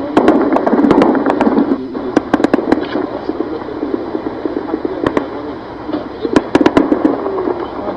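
Small-arms gunfire: a rapid run of sharp cracks, thickest in the first few seconds, then thinning to scattered shots with another quick cluster in the second half.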